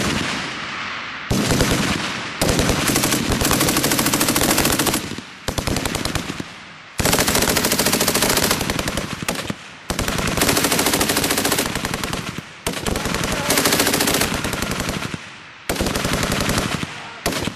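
Ksp 58 (Swedish FN MAG) belt-fed 7.62×51 mm machine gun firing in long bursts of automatic fire, about seven bursts of one to three seconds each with short pauses between them.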